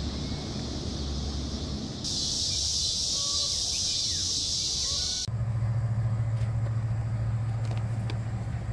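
Outdoor ambience that changes sharply twice: first a low rumble, then a steady high hiss with a few faint chirps, then, about five seconds in, a steady low drone from a lake freighter passing on the river.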